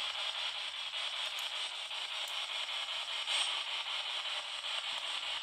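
Spirit box, a radio that scans through stations, giving out a steady hiss of white-noise static.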